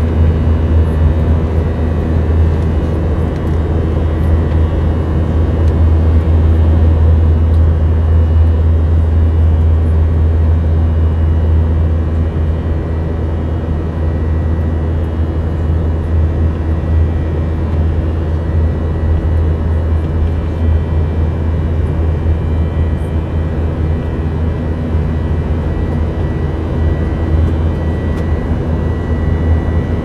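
Cabin noise of a jet airliner in flight, heard from a window seat: a steady low drone of engines and rushing air, with faint steady hums above it.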